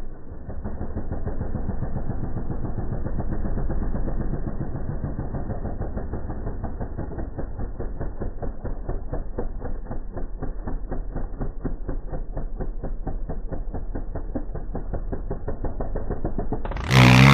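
Dirt bike engine running as the bike rides through sand, a muffled, steadily pulsing exhaust note that swells a little about three to four seconds in. Just before the end the sound jumps abruptly to a much louder, clearer engine note.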